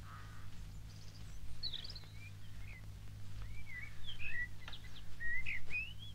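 Wild birds chirping: short calls that glide up and down, coming more often toward the end, over a steady low hum.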